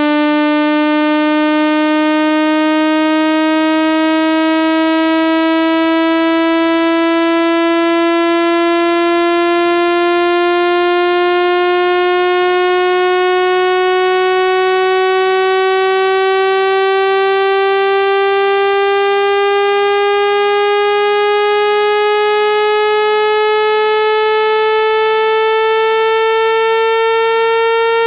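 Synthesized speaker-cleaning tone: a single buzzy electronic tone that glides slowly and steadily upward in pitch at a constant loud level.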